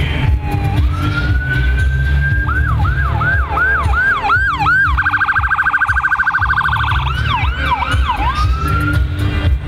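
Police siren working through its tones: a slow rising wail, then a quick repeating yelp, a very fast high warble about halfway through, back to the yelp, and a rising wail near the end.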